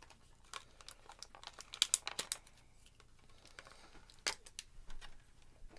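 Small toy's packaging being handled and unwrapped: crinkling with a string of sharp crackles and clicks, loudest about two seconds in and again a little after four seconds.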